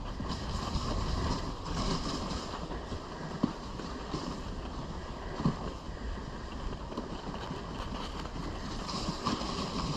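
Dog sled running over packed snow: a steady hiss of the runners with wind on the microphone, and a couple of brief knocks midway.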